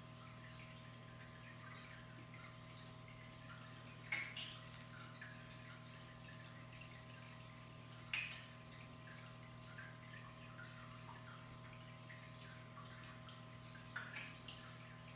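Faint steady low hum, broken by short sharp taps: one about four seconds in, another about eight seconds in, and a quick pair near the end.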